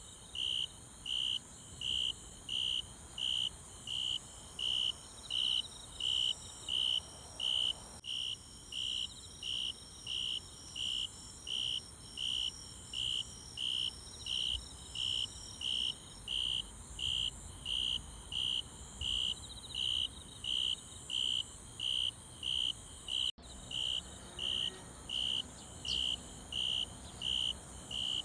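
Insect, cricket-like, chirping in a steady rhythm of about three chirps every two seconds, each chirp a short high buzz, with a fainter high insect hum behind it.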